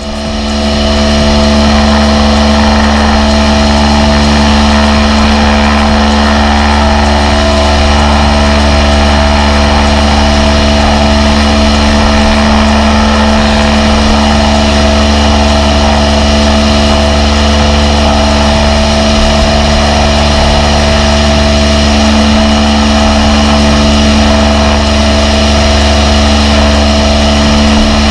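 High-pressure washer running steadily: a constant machine hum under the hiss of the water jet from the lance spraying the car's bodywork. It comes up to full level within the first second.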